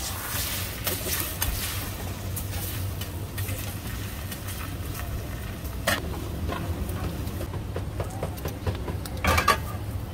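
Egg sizzling on a street vendor's flat griddle as a Ramly burger is cooked, with a sharp click about six seconds in and a short clatter near the end. A steady low rumble runs beneath it.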